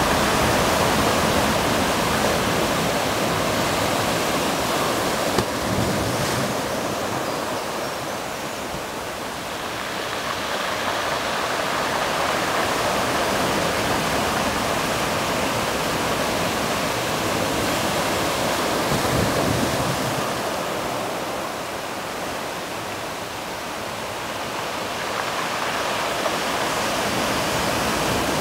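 Sea surf washing on the shore: a steady rush of water that eases and builds again twice in slow swells.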